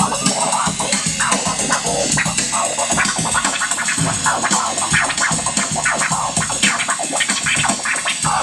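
Vinyl scratching on a portable turntable, the record cut into rapid short chops by a non-contact magnetic crossfader, over a backing beat.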